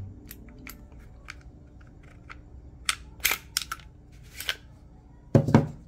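Glock G25 pistol being field-stripped by hand: a series of sharp metallic clicks and small snaps as the slide and frame are worked apart, with a louder knock near the end.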